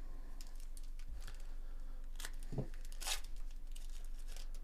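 Plastic wrapper of a 2024 Bowman Chrome hobby pack of baseball cards crinkling and tearing as gloved hands open it, in short scattered crackles, the loudest a little after three seconds in.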